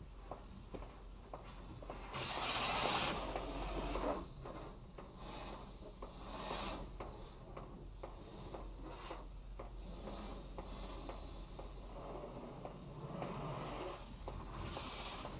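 Self-service car wash pressure wand spraying water onto the car, heard from inside the cabin: a hiss of spray that swells as the stream sweeps across, loudest about two to four seconds in and again near the end. Scattered ticks of water striking the windshield run between the passes.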